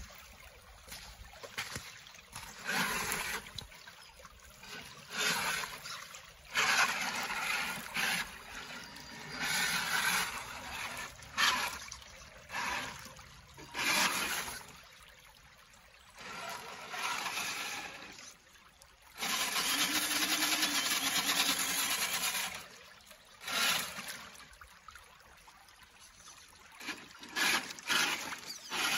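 Traxxas RC car's wheels spinning in shallow creek water, churning and splashing in repeated bursts of a second or two, with one longer burst of about three seconds past the middle. A faint water trickle runs between the bursts.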